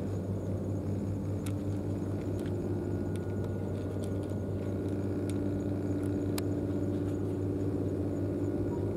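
Steady low mechanical hum, with a handful of faint, sharp clicks scattered through it from a cat chewing food out of a dish.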